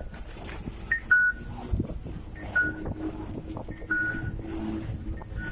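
Electronic two-note falling chime, a higher note then a lower one, repeating about every second and a half: a Japanese audible guide signal for blind pedestrians. A steady low hum of traffic runs beneath it.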